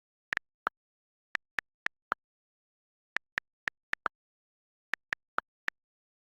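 Short sharp clicks in three quick groups of four, each group under a second long, the groups about a second and a half apart, with dead silence between.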